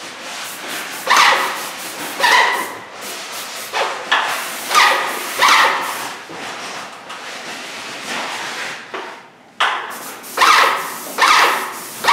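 Repeated short barks, roughly one a second in runs, with a lull of a few seconds past the middle and two more barks near the end.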